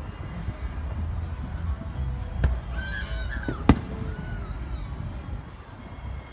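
Distant fireworks shells bursting in the air: sharp bangs about two and a half seconds and three and a half seconds in, the last the loudest, over a low rumble.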